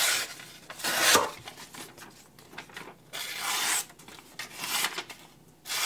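Carbon-steel kitchen knife edge drawn through newspaper in about five separate scraping strokes, testing sharpness after the edge has been blunted on a stone; the edge still catches the paper slightly.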